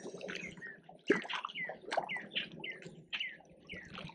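Birds chirping: a steady series of short, quickly falling chirps. A single sharp knock about a second in.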